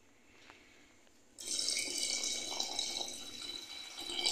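Hot water poured in a steady stream from a small glass into a pressure cooker of chicken-potato curry, splashing into the gravy. It starts about a second and a half in and lasts about three seconds.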